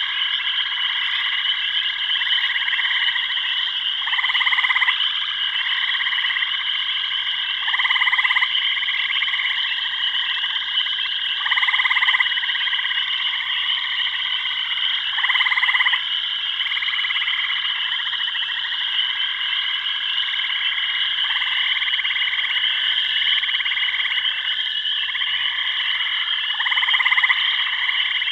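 Jungle frog chorus: a steady high trilling, with louder croaking calls about a second long repeating roughly every four seconds.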